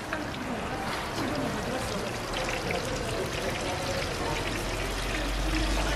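Hot oil sizzling steadily in a deep fryer around battered fritters, with a wire whisk sloshing through a bowl of thick batter.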